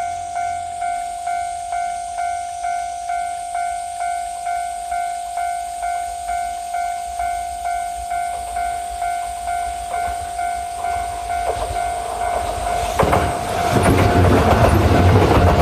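Japanese level-crossing warning bell dinging evenly, about two and a half dings a second. About thirteen seconds in, a Kintetsu 12200-series limited express train of two coupled sets arrives and passes, its rising rumble and the clatter of wheels over rail joints drowning out the bell.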